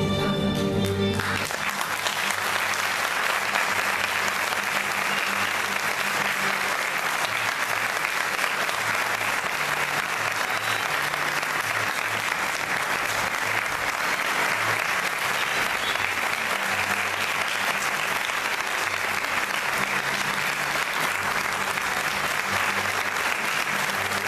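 Recorded music ends about a second in, and a large audience applauds steadily for the cast's curtain call.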